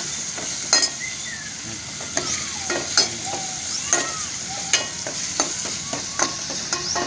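Tomato, onion and ginger sautéing in oil in an aluminium pot with a steady sizzle, while a metal spoon stirs and knocks against the pot about once a second.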